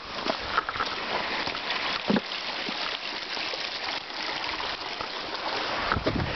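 Running water from a stream, a steady splashing hiss, with a few footfall thuds, one about two seconds in and another near the end.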